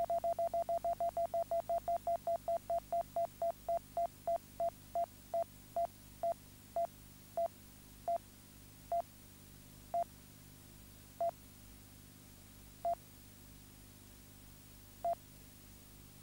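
Electronic beep sound effect: short beeps, all at one pitch, about six a second at first, then coming further and further apart until a couple of seconds separate them near the end.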